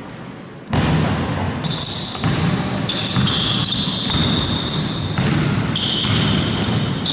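Basketball game on a court: many sneakers squeaking in short high squeals over the thud of the ball bouncing. The sound starts abruptly about a second in.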